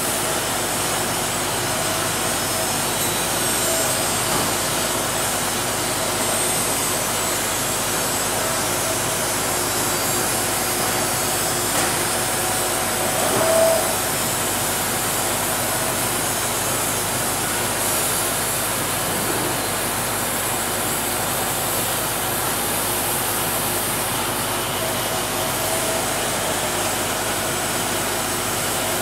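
Steady din of sawmill machinery running: a Morgan board edger with boards being fed through it, alongside a Wood-Mizer LT50 band sawmill. It gets briefly louder about halfway through.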